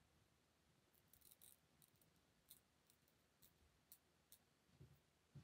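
Faint snips of small scissors cutting the lace of a lace-front wig along the hairline, a scattered series of short cuts.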